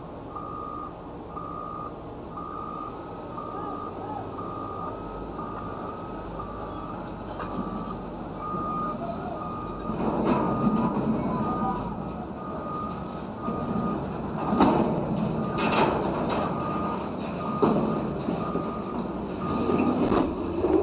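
A heavy machine's backup alarm beeping steadily at an even pace. From about ten seconds in, louder rumbling and a series of sharp bangs come as the steel water tower gives way and starts to tip over.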